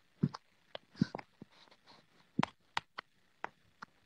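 Irregular soft clicks and taps close to the microphone, about a dozen in four seconds with quiet gaps between.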